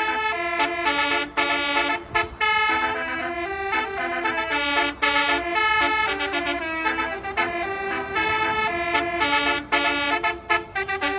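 Basuri telolet multi-tone musical air horn playing a tune of quick stepped notes, with a few short breaks between phrases.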